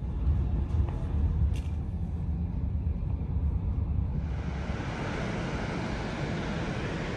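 Train running, a low steady rumble heard from inside the carriage. About four seconds in it gives way to a steady rushing roar of falling water, the Rhine Falls, heard from the station platform beside the river.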